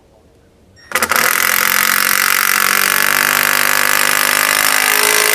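Cordless drill driving a 3-inch deck screw into the 2x4 rail: the motor starts about a second in, runs steadily for about four seconds and stops abruptly.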